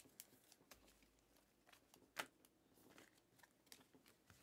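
Faint clicks and slides of 2021-22 Panini Mosaic basketball cards being flicked one at a time off a stack in the hand, a handful of separate ticks with the loudest about two seconds in.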